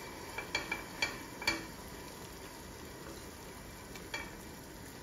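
A silicone spatula stirring boiling vermicelli and chicken mince in a pot, with a few light taps and scrapes against the pot in the first second and a half and once more about four seconds in, over the soft bubbling of the boil.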